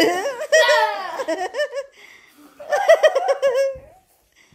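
Young children laughing in two bouts, the second a quick run of ha-ha pulses about two-thirds of the way in.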